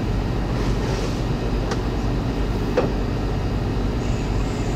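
Sea Ray motor yacht's engines running under way: a steady low rumble, with a couple of faint ticks in the middle.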